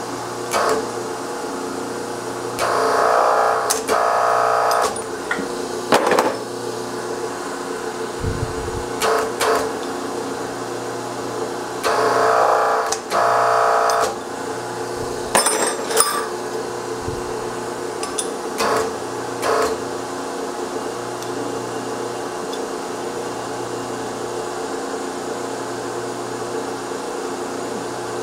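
Hydraulic power unit of a Whitney punch press running with a steady hum. It strains louder four times, in two pairs of strokes lasting about a second each, as the punch is driven through steel bracket stock. Sharp metallic clicks of the tooling and parts come in between.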